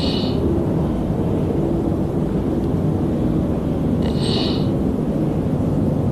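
Giant panda snoring: a steady low rumble, with two brief higher sounds, one at the start and one about four seconds in.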